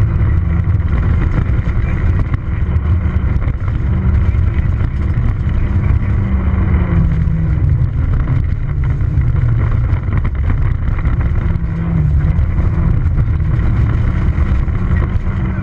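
Peugeot 206 XS rally car's engine pulling hard at high revs on gravel, heard from inside the cabin, with stones rattling against the car. The engine note sags twice, about seven and twelve seconds in, and climbs again as the car lifts and changes gear.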